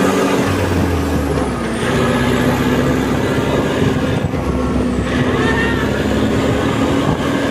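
Yanmar 1160 SR turbo tractor's diesel engine running steadily while the tractor drives along, heard from the driver's seat. Its note eases down a little about a second and a half in.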